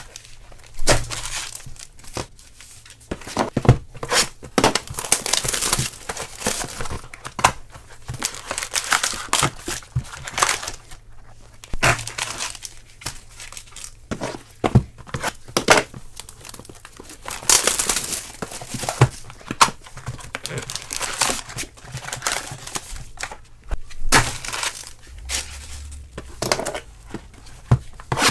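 Plastic shrink-wrap on sealed trading-card boxes being torn open and crumpled by hand, in irregular crinkling bursts, with a few sharp knocks of the cardboard boxes being handled.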